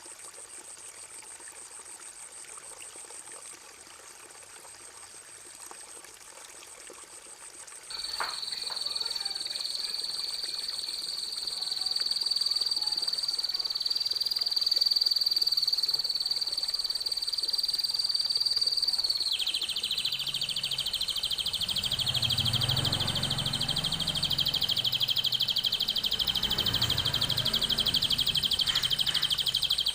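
A songbird-training master recording. After a few seconds of faint hiss, a long, steady, very high note is held for about eleven seconds. It then gives way to a fast, buzzy trill.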